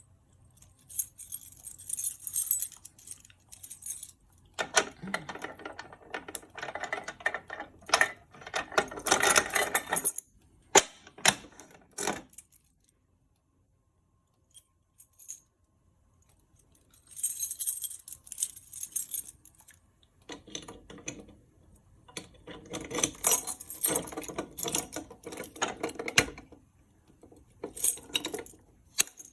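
A ring of keys jangling and rattling while fire alarm pull stations (a Simplex 4251-20 and a Bosch FMM100-SATK) are unlocked and reset, with sharp clicks and snaps from the stations' mechanisms. It comes in irregular bursts, with a few seconds of quiet about halfway through.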